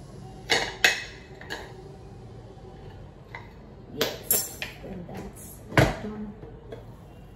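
Metal clinks and knocks of a spoon and a pressure cooker's lid and handles being worked as the cooker is opened after its whistles, with a louder, heavier knock about six seconds in.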